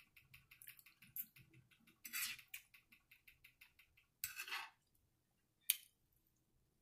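Faint, rapid little clicks and a few louder scrapes of a metal fork in a glass bowl of collard greens, with soft eating sounds.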